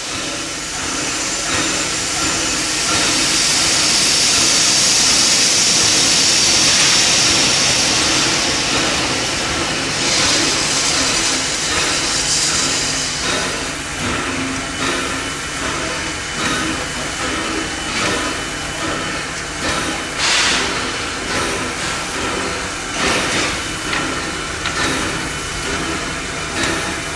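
Steam locomotive hissing loudly as steam vents from its cylinder drain cocks, strongest for the first several seconds, then giving slow exhaust puffs about once a second as it moves off at walking pace.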